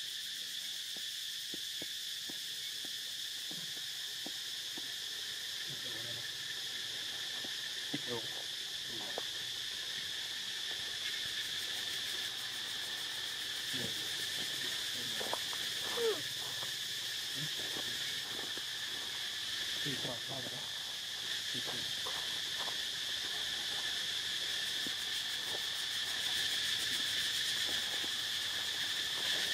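A steady, high-pitched insect chorus drones without a break. A few brief, faint low sounds come and go around the middle.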